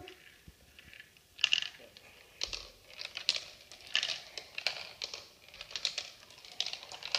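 Marbles rolling down a plastic marble run, an irregular string of light clicks and rattles as they drop through the tubes and bounce along the track pieces, starting about a second and a half in.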